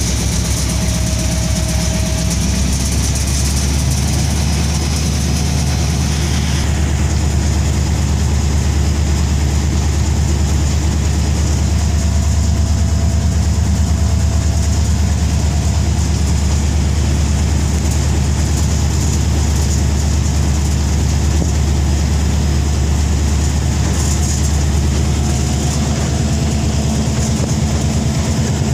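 Diesel locomotive engine running with a steady low drone, heard from the cab with the train under way.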